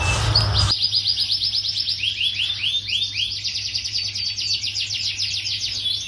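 Canary singing: fast trilled rolls of rapidly repeated high notes, with a short run of slower falling notes about two seconds in, over a faint low hum.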